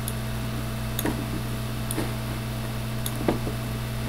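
A few short computer mouse clicks, roughly a second apart, over a steady electrical hum from the recording setup.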